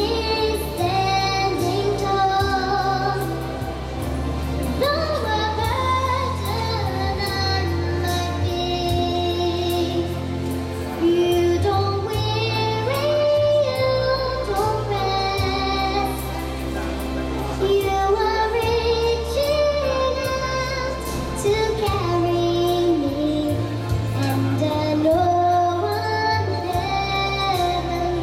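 A young girl singing a melody into a microphone over backing music with a steady bass line, holding and sliding between sustained notes.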